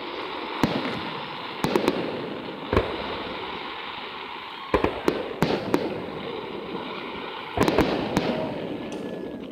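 Aerial fireworks shells bursting: about a dozen sharp bangs, several in quick clusters, the densest cluster about three-quarters of the way through, over a continuous crackling hiss.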